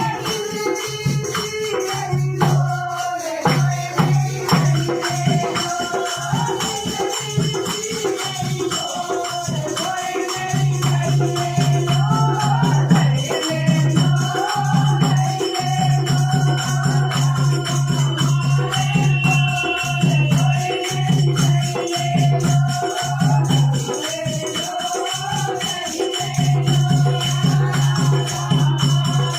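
A woman singing a Krishna bhajan over dense rattling hand percussion, with a steady low drone that drops in and out.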